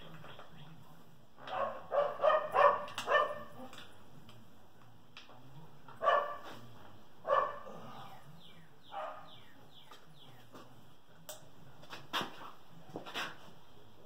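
A dog barking in short repeated barks: a quick run of four or five about two seconds in, then single barks every second or two.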